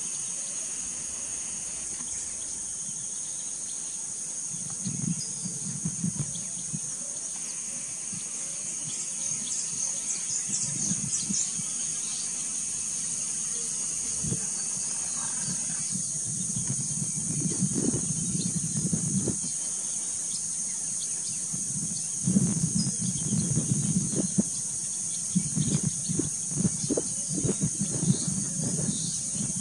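Steady, high-pitched drone of insects calling in the grass, unbroken throughout. Irregular low rumbles come and go over it, several times in the second half.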